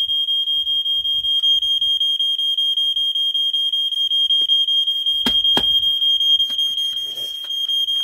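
Vintage Gateway Scientific 'Smokey Stover' Model 4001 smoke detector's piezo horn sounding a loud, steady, high-pitched alarm tone, set off from its test button. Two sharp knocks about five seconds in.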